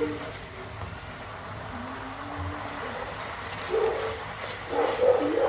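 Butter and sugar caramel bubbling in a non-stick pan as a wooden spatula stirs it, with a few short, wavering pitched sounds over it, loudest near the end.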